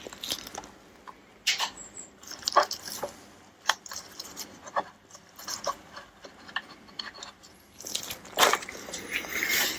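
Scattered small clicks and knocks of a screwdriver and metal engine parts being handled on an outboard motor being taken apart, about one a second, busier near the end.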